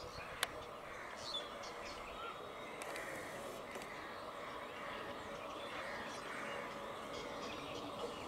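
Birds chirping in short calls over a steady background hum, with one sharp click about half a second in.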